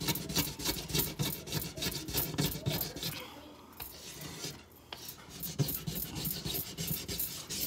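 Small hand blade scraping burnt-on residue off a stove top, softened beforehand with cleaning cream, in quick repeated strokes of about three a second. The strokes ease off a few seconds in and pick up again near the end.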